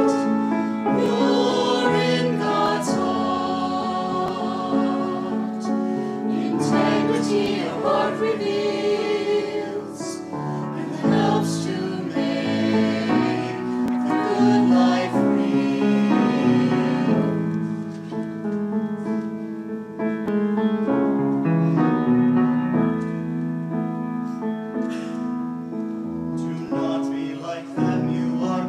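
Small mixed choir of men's and women's voices singing together.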